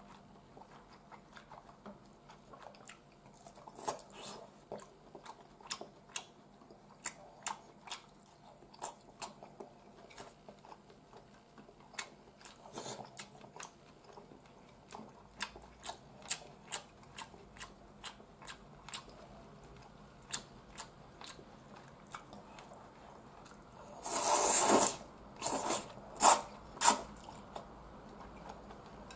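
Close-up eating sounds of a man eating udon: many small chewing and mouth clicks. Near the end come a louder slurp lasting about a second and then three short sharp slurps.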